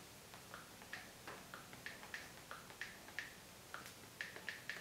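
Password being typed on a smartphone's touchscreen keyboard: a faint, irregular run of short key taps, a few a second.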